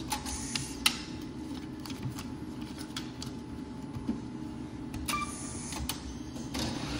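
ATM cash slot at work. Its shutter motor whirs open with a couple of clicks. A short beep sounds about five seconds in, and the motor whirs again near the end as the slot closes on the inserted banknotes.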